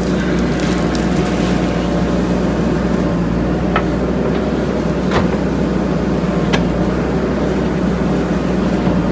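JCB 3DX backhoe loader's diesel engine running steadily under work, with three short sharp knocks in the middle.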